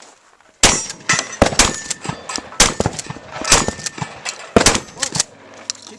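A rapid string of shotgun shots, a dozen or so sharp reports coming in quick clusters from about half a second in, some followed by the metallic ringing of hit steel targets.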